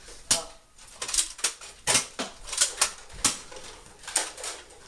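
A run of irregular sharp clicks and knocks, about ten in all, some louder than others.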